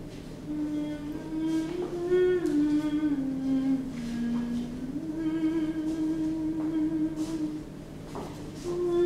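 A person humming a slow tune, holding each note for a second or more; the melody steps down in the middle, comes back up and breaks off briefly near the end. A few faint knocks sound behind it.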